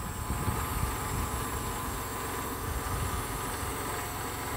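Kubota tractor's diesel engine running steadily under load with a low rumble as its front-loader bucket pushes against a Jeep's bumper.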